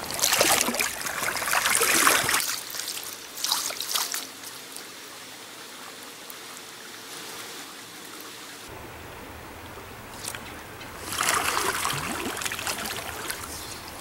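Trout stream water running and trickling, with louder splashing near the start and again near the end.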